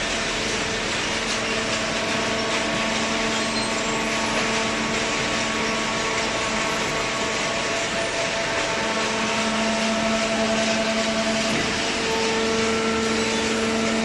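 Cardboard baler and its feed conveyor running: a steady industrial hum with a droning tone over a rushing noise, the drone growing stronger a little past the middle.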